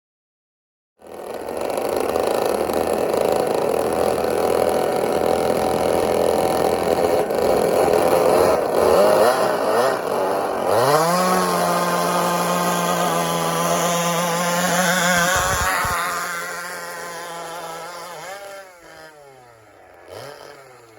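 Six two-stroke chainsaw engines of a radio-controlled pulling tractor running hard, pitch rising about ten seconds in as they rev up. The engines drop off about three quarters of the way through, with two short revs near the end.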